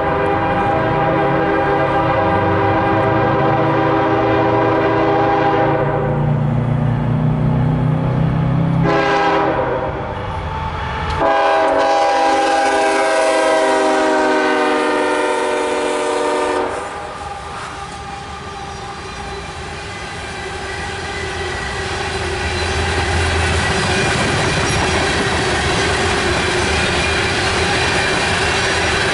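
CSX freight diesel locomotives sound their air horn in several long blasts over the first seventeen seconds or so, their engines rumbling beneath. Then the coal hopper cars roll past in a steady rumble.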